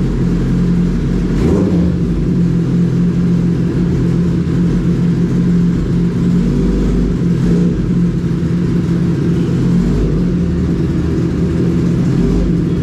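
Inline-four superbike engine with a full-system exhaust, running loudly at a steady idle with a couple of brief revs.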